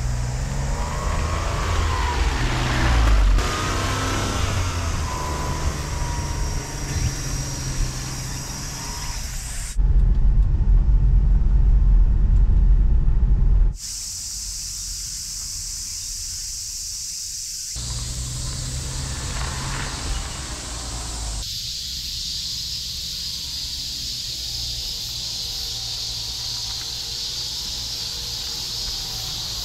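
A Honda Acty kei truck's engine running as it drives, heard across several cut-together clips. In the later part, insects buzz steadily at a high pitch over a faint engine hum.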